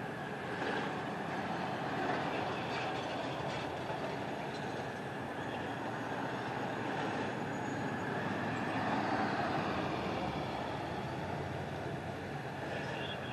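Road traffic: vehicles passing, a steady rumble that swells louder as they go by, loudest about nine seconds in.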